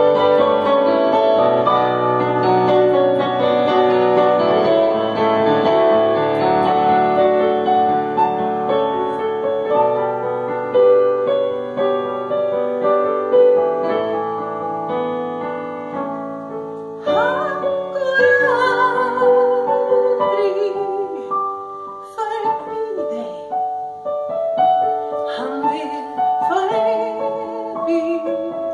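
Piano playing a song alone, joined by a woman singing about two-thirds of the way through.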